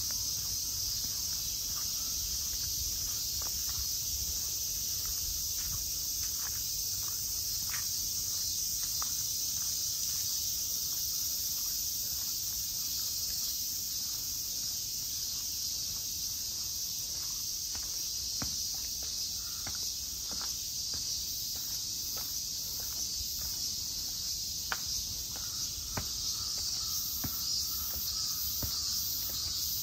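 Steady high-pitched chorus of insects, with footsteps clicking lightly throughout.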